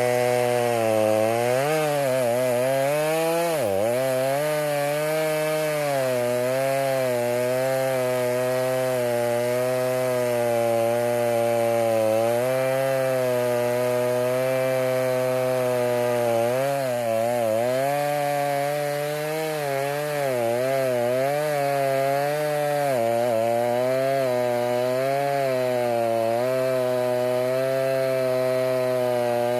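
Stihl MS290 two-stroke chainsaw running at high revs while cutting through a red oak log, its pitch sagging under load and picking back up several times.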